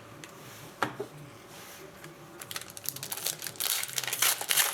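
A single click about a second in, then, from about halfway through, the plastic wrapper of a hockey card pack crinkling as it is handled and torn open.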